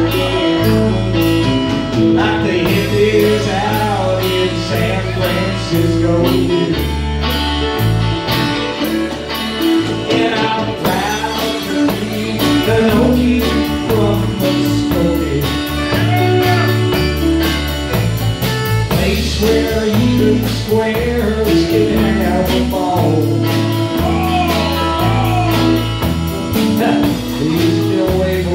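Live country band playing: electric guitars, Fender electric bass, drums and Hammond organ through a Leslie cabinet, with a steady beat.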